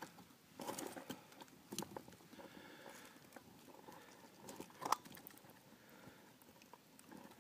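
Scattered rustling and crackling of dry leaves and twigs underfoot, with a sharper snap about five seconds in.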